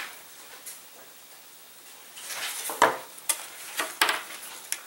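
Hand work at the bench while gluing the glider's wing roots: after a quiet stretch, a run of light clicks, taps and rustles from about halfway through.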